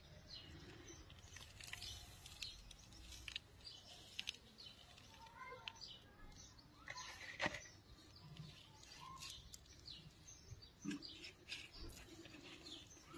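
Quiet, with faint bird chirps in the background and occasional soft taps and rustles as potting mix is poured from a plastic pot and pressed around a succulent.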